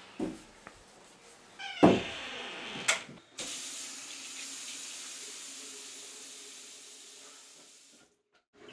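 A door creaks open with a knock. After a click, a bathroom sink tap runs steadily for about four and a half seconds and is shut off suddenly.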